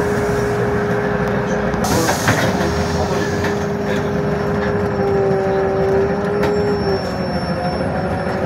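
Inside a LiAZ-52803 trolleybus on the move: the electric traction drive gives a steady whine over road rumble. The whine wavers in pitch between about five and seven seconds in, while a second, higher tone joins it. A high hiss cuts off suddenly about two seconds in.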